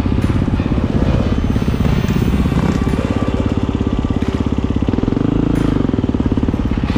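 Husqvarna dirt bike engine running close up under the rider, a rapid steady firing beat with the revs rising and falling as it rides the trail.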